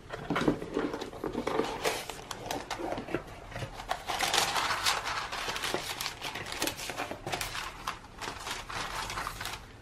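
Hands opening a cardboard mailer box and rustling the tissue paper inside: a dense run of crinkles, scrapes and small knocks, busiest around four to five seconds in.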